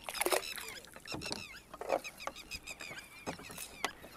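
Water splashing and dripping as a wet fishing net is pulled into a small wooden boat, with a few brief knocks. Many small birds chirp steadily.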